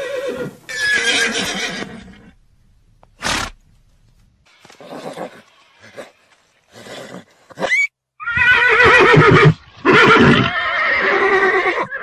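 Horses neighing: long whinnies with a wavering, shaking pitch, one near the start and the loudest ones in the second half, with a few short, quieter calls in between.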